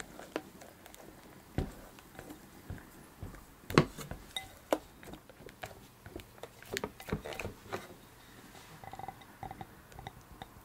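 A spatula folding and scraping a thick pink berry mousse mixture in a glass mixing bowl: soft wet squelches with sharp clinks and taps of the spatula against the glass, the loudest about four seconds in.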